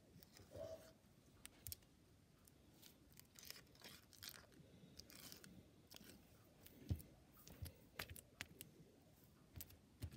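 Faint sticky clicks and crackles of red glitter slime being pulled into strands and pressed with a finger, with one sharper click about seven seconds in.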